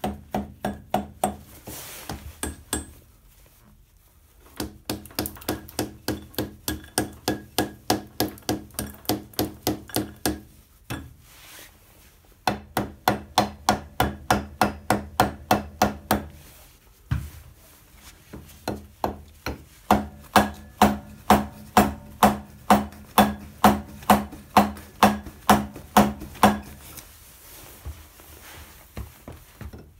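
Mallet tapping a clutch-hub puller on a Harley-Davidson Shovelhead, repeated sharp knocks at about three a second in four runs with short pauses between them, used to shock the clutch hub loose.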